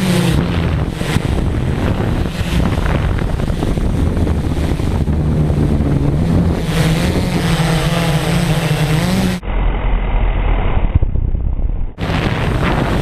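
Electric motors and propellers of an RC multirotor drone humming, their pitch shifting as the throttle changes, under heavy wind buffeting on the microphone. For a couple of seconds near the end the sound turns muffled, a low rumble.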